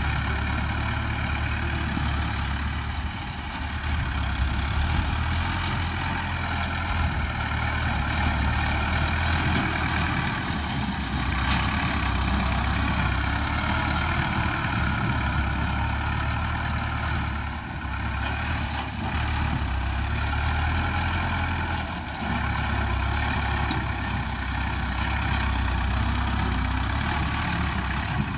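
Tractor engine running steadily under load as it pulls a rotary mower through grass, its pitch wavering slightly.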